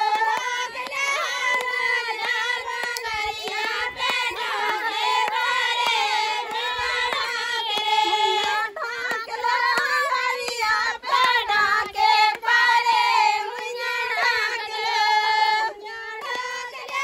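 A group of women singing a Bundeli wedding folk song together in high voices, clapping their hands along with it.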